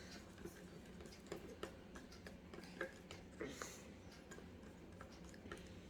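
Faint, irregular clicks and taps of a spoon stirring slime in a mixing bowl as the glue and borax mixture starts to set.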